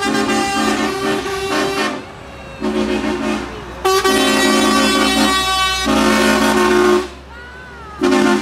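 Lorry air horns sounding in about five blasts, each a chord of steady tones, the longest lasting about two seconds, over the low rumble of a passing lorry's diesel engine.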